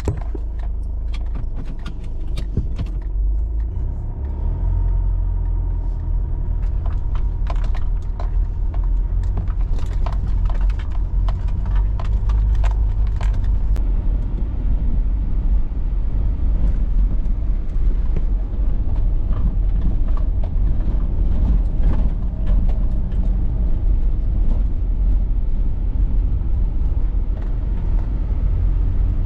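Car driving over a rough farm track: a steady low rumble from the engine and tyres, with frequent rattles and knocks, most of them in the first half.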